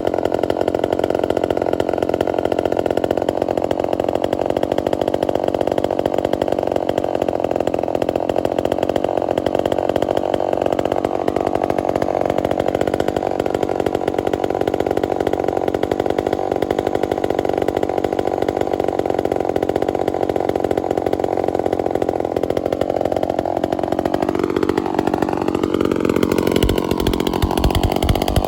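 Vintage Lombard chainsaw's two-stroke engine running hard and steadily, its pitch wavering up and down near the end. It runs extremely rich on the trigger and then leans out, which the owner takes for a carburetor fault.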